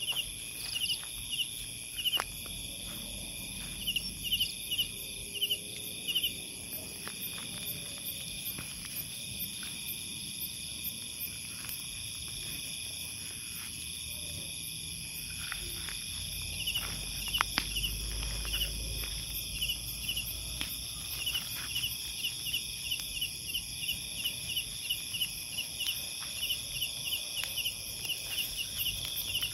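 Night insect chorus: several steady high trills with a short chirp repeating over them, sparse at first and then regular through the second half. A few faint clicks, and a low rumble about eighteen seconds in.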